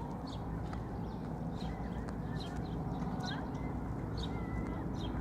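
Footsteps on hard pavement, sharp scuffing clicks coming in pairs about every three-quarters of a second, over a steady low rumble.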